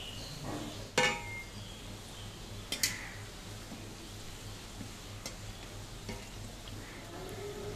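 Samosas deep-frying on low heat in oil in a metal karahi, a steady gentle sizzle, with a metal spatula knocking against the pan a few times, loudest about a second in.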